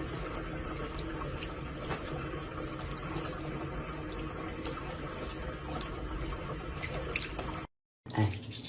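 Steady running water, like a tap running into a sink, with a few small clicks or splashes; it cuts off suddenly near the end.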